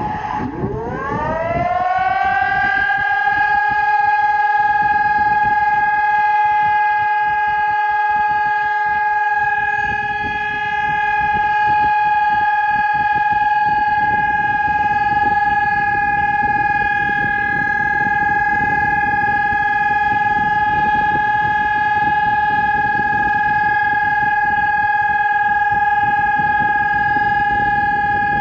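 Civil defence siren sounding its test signal: the pitch rises over the first two seconds or so, then holds one steady, unwavering tone.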